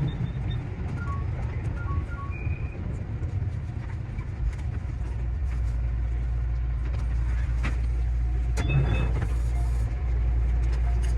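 JR Central 315 series electric train running, heard from the cab: a steady low rumble with a few clicks from the wheels and track, getting slightly louder near the end.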